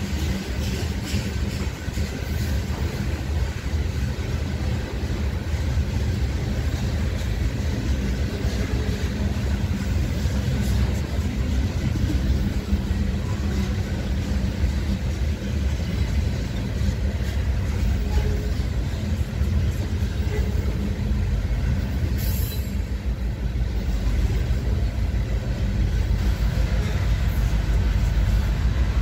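Covered hopper cars of a grain train rolling past: a continuous rumble of steel wheels on the rails that grows a little louder near the end.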